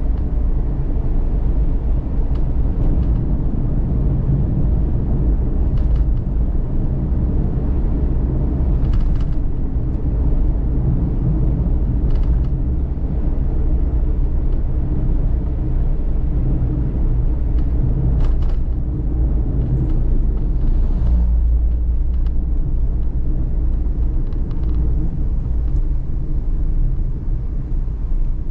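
Cabin noise inside a Suzuki Every DA17V kei van on the move: a steady low rumble of its 660 cc three-cylinder engine and road noise, with a few brief faint clicks and rattles from the interior.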